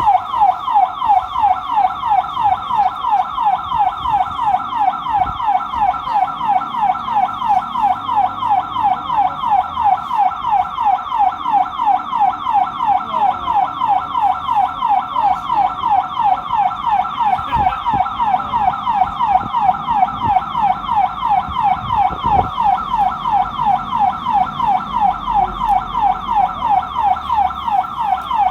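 ADL Enviro200 bus's panic alarm sounding continuously: a loud electronic siren tone sweeping in fast repeated cycles, about three a second. The alarm has been set off by accident.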